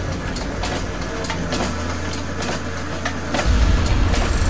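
Mechanical sound effects for an animated logo intro: a steady low machine rumble with irregular metallic clicks and clanks. The rumble swells about three and a half seconds in.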